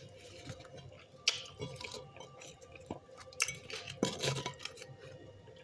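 Close-miked chewing of a mouthful of salad: irregular soft crunches and wet mouth sounds, with a few sharper clicks.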